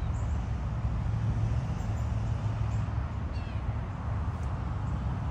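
Outdoor garden ambience: a steady low rumble with a few faint, short, high bird chirps.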